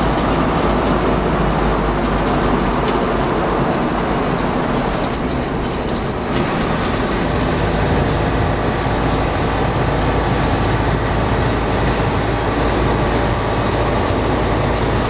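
Steady engine drone and road noise inside the cabin of a moving bus.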